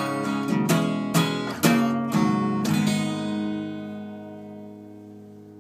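Acoustic guitar strummed, about six strokes roughly half a second apart, then the song's final chord left ringing and fading away over the last few seconds.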